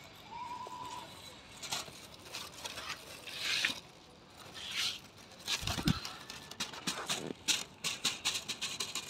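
Thin paper of a kite rustling and crackling as it is handled, in a few short swells and then a run of quick crackles in the last few seconds, with a soft thump a little past halfway.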